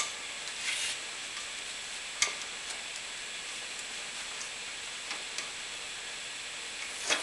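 A few scattered sharp metal clicks and taps over steady background hiss, the loudest about two seconds in: a socket and extension being set into a HeliCoil thread insert in an aluminum plate in a vise, to break off the insert's tang.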